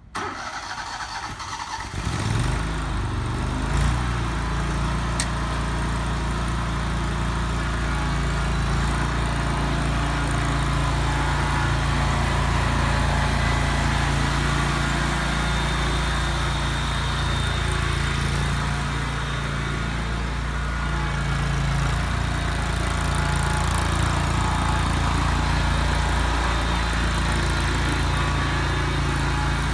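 Engine of a John Deere Z915B zero-turn mower starting up about two seconds in, then running steadily.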